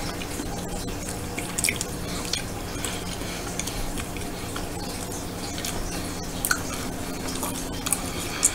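Small wet mouth clicks and smacks from chewing soft, pasty preserved duck egg, a few short sharp ticks over a steady low hum.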